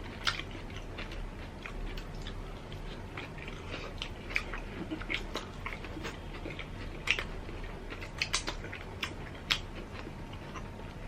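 People chewing food, with short, irregular crunching clicks scattered throughout.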